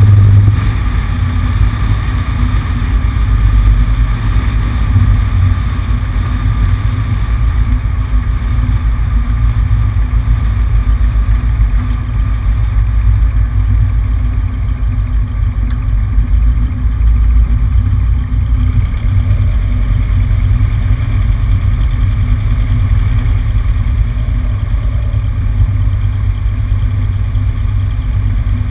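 Cessna 150's four-cylinder Continental O-200 engine and propeller running steadily, heard from outside the cabin on the wing. It is a little louder in the first second, then holds an even drone.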